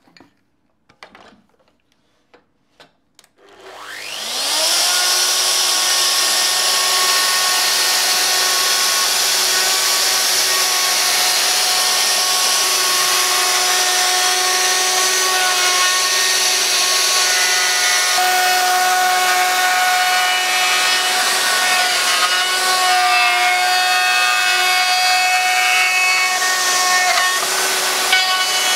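A few light clicks as the tool is set up, then a Festool router starts with a rising whine about three and a half seconds in and runs steadily, cutting a recess into wood through a metal template.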